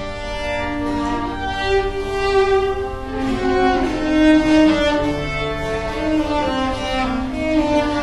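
Background music of slow, sustained held notes that change every second or two.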